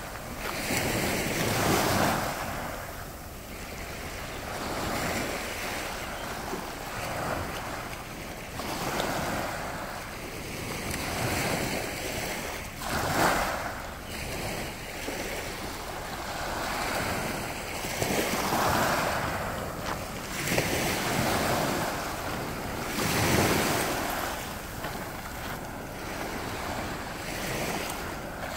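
Small Baltic Sea waves washing up onto a pebbly sand shore, each wash swelling and fading away every four to six seconds.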